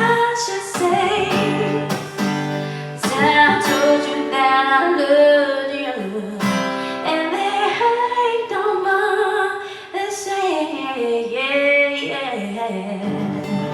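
A woman singing over a strummed acoustic guitar in a live performance; near the end the voice stops and the guitar plays on alone.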